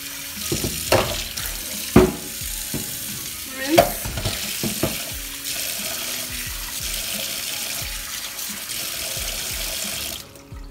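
Kitchen tap running into a stainless steel sink while a wooden cutting board is rinsed under it, with a few sharp knocks in the first five seconds. The water cuts off shortly before the end.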